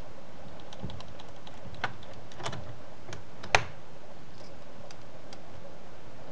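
Scattered light clicks and ticks as a precision screwdriver backs a small screw out of an HP G62 laptop screen's metal mounting bracket. The sharpest click comes about three and a half seconds in.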